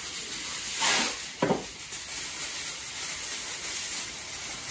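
Aluminium kitchen foil rustling and crinkling as a sheet is pulled from the roll and spread over a roasting tray, with a couple of louder crackles about a second in.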